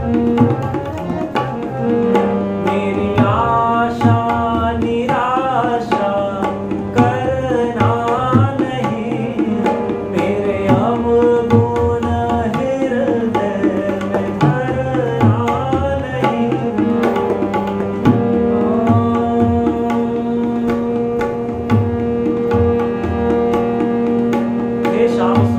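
Tabla playing a steady, dense rhythm under a harmonium holding sustained notes, as bhajan accompaniment. A melody with sliding, ornamented pitches runs over it through the middle.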